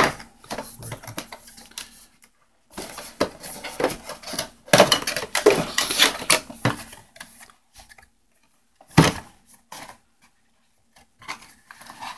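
A cardboard box of LED bulbs being handled and opened by hand: irregular bursts of cardboard scraping, tapping and rustling with quiet gaps between, loudest about five to seven seconds in.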